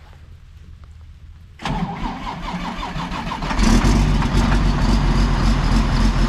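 A heavy diesel engine being started: the starter cranks it for about two seconds, then it catches and runs loud and steady.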